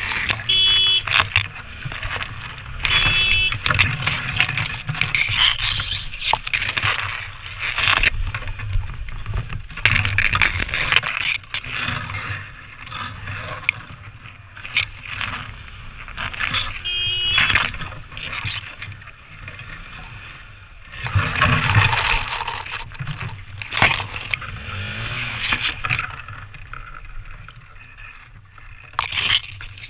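Tall pampas grass brushing and scraping against a helmet-mounted camera in uneven rustling bursts as the rider pushes through the stalks.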